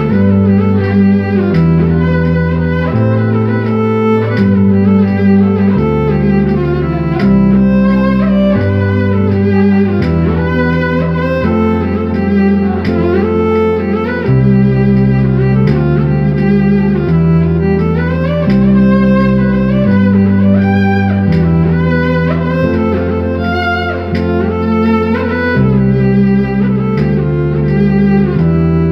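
Music played on an electronic arranger keyboard: a melody in string-like voices, sliding between notes, over a bass line whose notes change about once a second.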